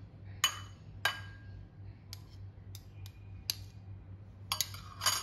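Metal spoon clinking against a ceramic plate and bowl: about seven sharp clinks at irregular spacing, each with a short ring, the loudest about half a second in, about a second in and near the end.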